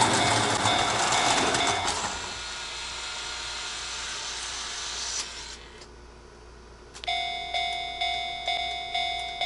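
Japanese level-crossing warning bell ringing over a rushing train noise. The bell stops about two seconds in and the rushing noise fades out a few seconds later. After a short lull the bell starts again near seven seconds, ringing steadily at about two dings a second.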